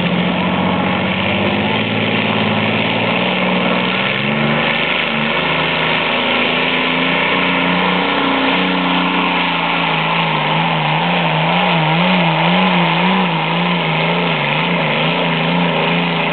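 Allison V-12 aircraft engine in a modified pulling tractor running hard under load as it drags a weight sled. The note holds steady, then wavers up and down several times in the second half.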